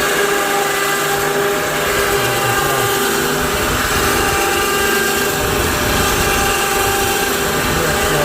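Modified ATV winch's electric motor running steadily with a whine. It drives a chain and sprocket that turn the Acme rods and move the sawmill head along them.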